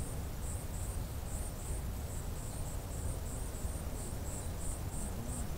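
An insect chirping in a steady, even rhythm, about three high-pitched chirps a second, over a low rumble of wind on the microphone.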